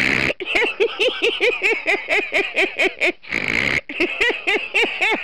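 A person laughing hard in rapid ha-ha pulses, about six a second, broken by a long wheezing in-breath at the start and again about three seconds in.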